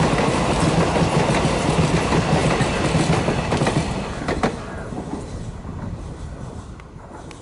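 Passenger train rolling by, its wheels clattering over the rail joints. The sound dies away from about halfway through as the train leaves.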